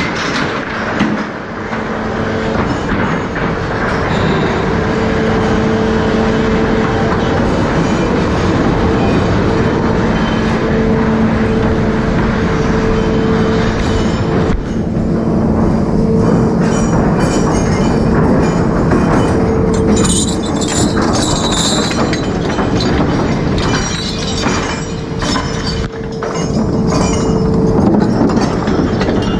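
Trawler deck machinery running: a steady mechanical drone of the winches and net drum, with a hum at two held pitches. Scattered clanks and knocks of chain and steel join in, busier in the second half.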